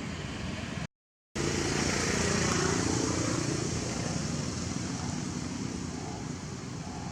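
Steady outdoor background noise with a motor vehicle passing, swelling about two seconds in and easing off. The sound drops out completely for about half a second about a second in.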